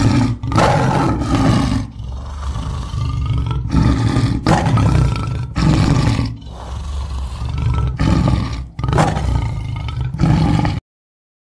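Big cat roaring over and over: about eight loud roars with low growling between them. The sound starts and cuts off abruptly, as if edited in.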